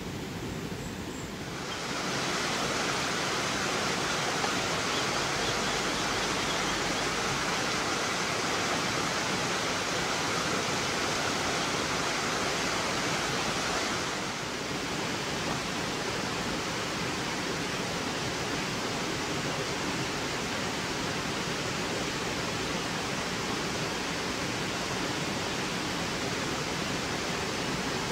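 Water of a small creek running over rocks: a steady rushing hiss that gets louder about two seconds in and eases slightly about fourteen seconds in.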